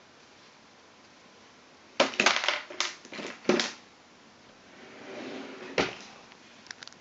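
Close handling noise: a burst of clattering and rustling about two seconds in, lasting about a second and a half, then a softer rustle and a single sharp click near the end, as things are handled and moved about close to the microphone.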